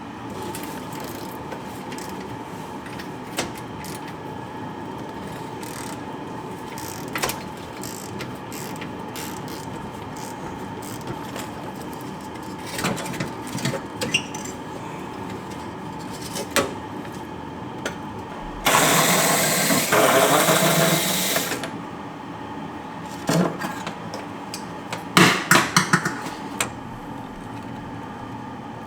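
Garage work on a car: scattered clinks and knocks of tools on metal over a steady hum. About two-thirds through comes a three-second burst of loud rushing noise, and a quick run of sharp clicks follows a few seconds later.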